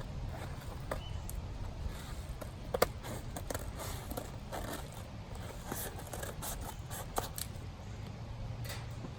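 A mailed package being opened by hand: scraping and rustling, with scattered small clicks and one sharper click a little before three seconds in.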